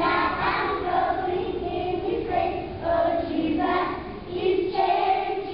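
A group of young children singing together as a choir, in short sustained phrases.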